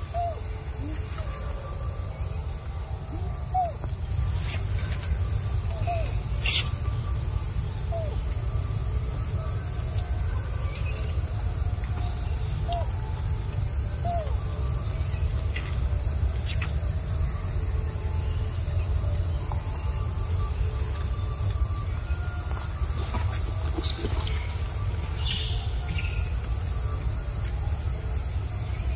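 Insects droning steadily at two high pitches over a low, steady rumble, with a few faint short rising chirps and a couple of brief clicks.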